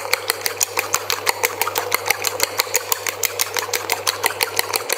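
Eggs being beaten briskly in a small stainless steel bowl: the utensil clicks rapidly and evenly against the metal, about eight strokes a second, whipping air into the eggs. A low steady hum underneath stops just before the end.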